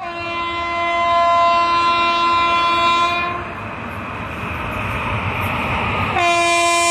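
Locomotive horn of an express train approaching at speed through a station without stopping: one long blast of about three seconds, then the rising rumble of the oncoming train, then a second long blast beginning near the end.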